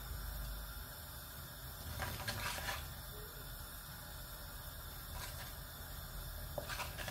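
Mustard seeds warming in hot oil in a kadhai, a faint steady sizzle, with a wooden spatula stirring and scraping the pan briefly about two seconds in and again near the end.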